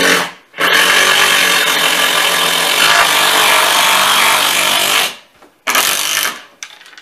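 Impact driver driving a screw into wood: a short burst, then a long run of about four and a half seconds, then a brief final burst.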